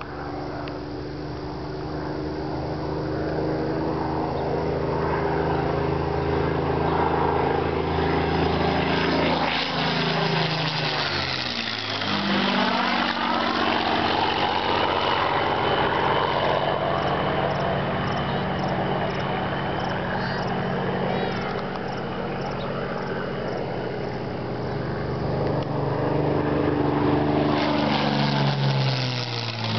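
Supermarine Spitfire's Rolls-Royce Merlin V12 engine running in low flypasts. The steady engine note drops sharply in pitch as the aircraft passes overhead, about ten seconds in and again near the end.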